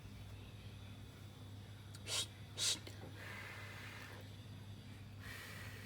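Two short, sharp puffs of breath about half a second apart, followed by softer breathy hissing, over a steady low hum.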